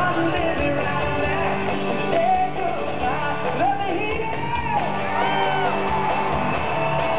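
Live band music at a rock-country concert, heard from among the audience, with voices singing and crowd whoops and shouts over it.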